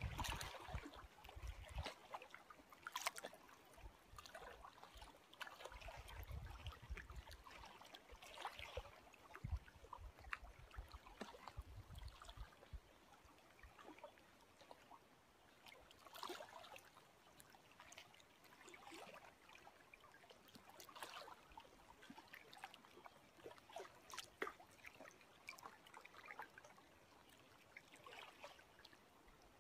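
Small lake waves lapping and splashing irregularly close by, with low rumbles of wind on the microphone a few times in the first half.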